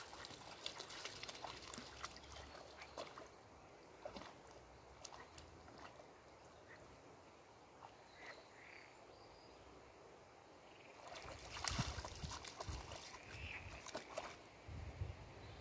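Dog wading through shallow pond water: faint sloshing and dripping from its legs, with louder splashing as it steps about eleven seconds in.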